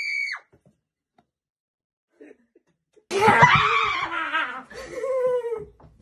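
A woman's high-pitched scream, held steady, cuts off just after the start. After a gap of silence of about two and a half seconds, a loud outburst of laughter and shrieking voices follows.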